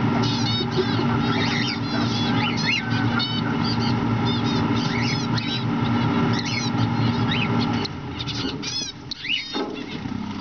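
Cockatiels chirping in quick repeated runs of short chirps, over a steady low hum that drops away about eight seconds in.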